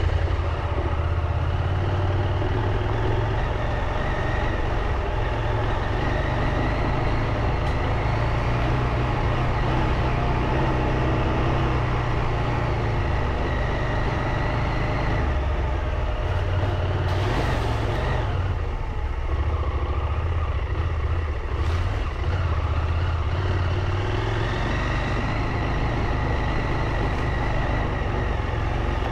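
Motorcycle engine running under way, its low drone stepping up and down in pitch as revs change. There is a brief rush of noise about 17 seconds in.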